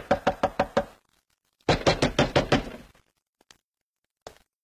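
Rapid knocking on a door: two quick runs of about six knocks each, with a short pause between them, followed by a few faint clicks.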